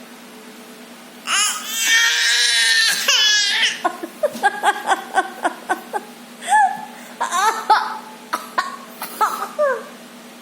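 A small child's voice: a long high-pitched cry starting about a second in, then a run of short, quick vocal bursts and brief squeals.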